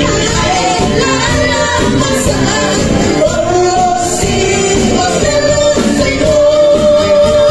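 Live band music: two women singing a Christian praise song over strummed acoustic guitars and small string instruments, with percussion, in a large hall.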